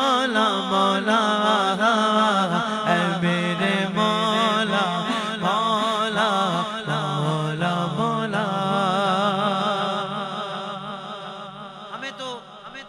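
Male voice singing a naat in a long, drawn-out wordless melody over a steady low held tone, amplified through a PA with an echo effect. It fades out near the end.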